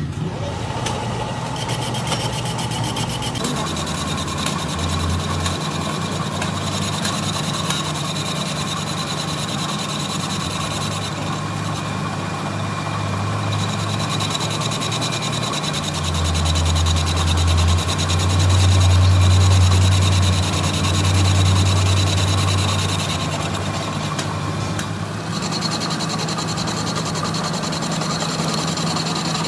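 Metal lathe running while a cutting tool machines the bore of a motorcycle wheel hub: a steady motor hum and high whine under the scrape of the cut. A deeper hum swells louder for several seconds past the middle.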